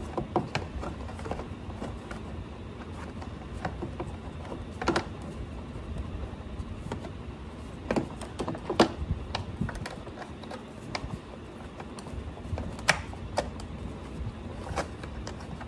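Plastic air-intake ducting and trim in a Porsche 911's engine compartment being handled and fitted back into place by hand: irregular light clicks and taps, with several sharper knocks scattered through.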